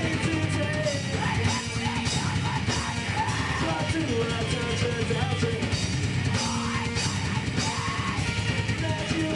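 A rock band playing live: electric guitars over a drum kit keeping a steady beat.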